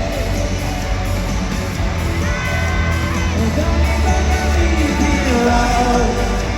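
Live amplified pop-rock band music with a singer, heavy bass and a full mix, playing at a steady loud level.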